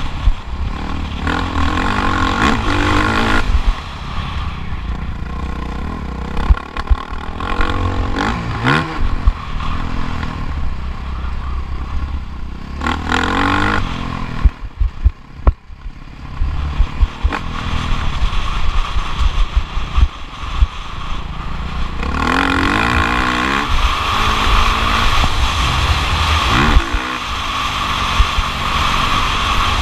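Motocross bike engine revving hard and dropping off again and again as the throttle is worked, with clattering and heavy low thumps. Near the middle the engine sound falls away for a couple of seconds before picking up again.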